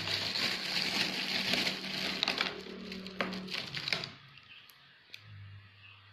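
Rustling and scraping of paper and drawing instruments being handled, with small clicks, for about four seconds before it stops. A faint steady low electrical hum runs underneath.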